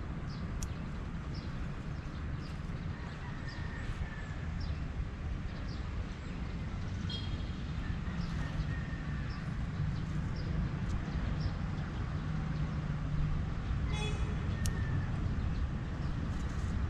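Outdoor garden ambience: a steady low rumble, with a bird repeating a short high chirp in an even series, and one sharp click near the end.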